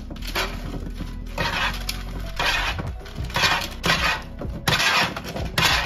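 Two metal forks tossing oiled chopped vegetables on a parchment-lined baking pan: repeated short scraping and rustling strokes, about one a second, over background music.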